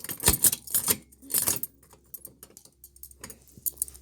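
Metal shackles and their chain clinking and clicking as they are handled and fastened on, busiest in the first second and a half, then a few scattered clicks.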